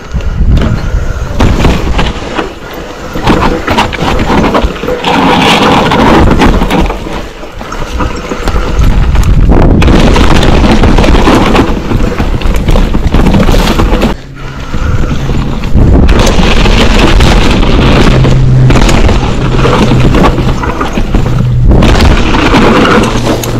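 Mountain bike riding hard down a rocky dirt trail, heard from a camera mounted on the rider: a loud, continuous rumble of wind buffeting the microphone and tyres on dirt and rock. The bike knocks and rattles repeatedly over roots, rocks and drops.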